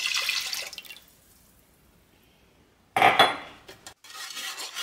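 Milk pouring from a glass measuring cup into a metal saucepan for about a second, then a loud clink about three seconds in. Near the end a wire whisk starts scraping around the ridged bottom of the pot.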